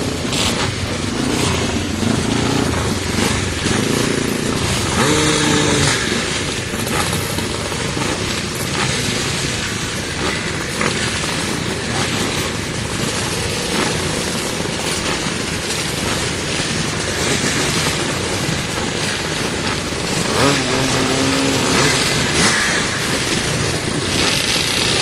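Twinshock motocross motorcycle engine running loud under open throttle, revved up sharply about five seconds in and again about twenty seconds in.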